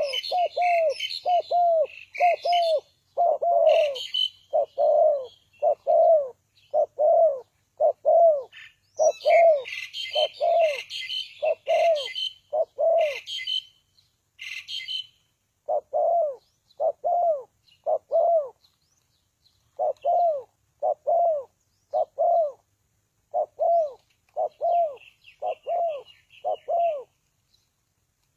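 Spotted dove cooing over and over, about one coo a second, pausing briefly about halfway through. Smaller birds chirp over it in bursts during the first half, and faintly near the end.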